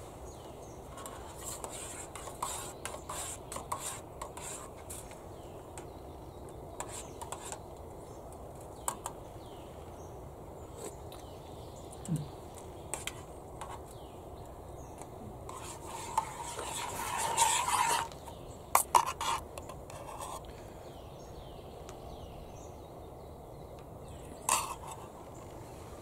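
Metal utensils clinking and scraping against a camping cooking pot while soup is stirred, scattered light clicks with a longer scraping stretch about two-thirds of the way through and a sharper clank near the end.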